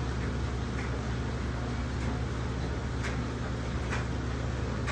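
Steady low background hum with a few faint clicks about three and four seconds in.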